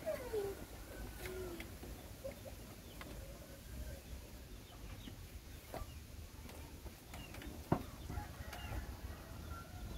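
Faint chicken clucks and calls, a couple of short falling calls in the first second or two, with a few soft clicks later on.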